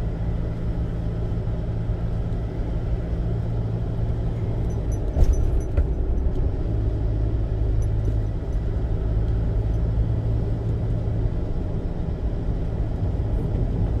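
Car driving along a road: steady low rumble of engine and tyres, with one short thump about five seconds in.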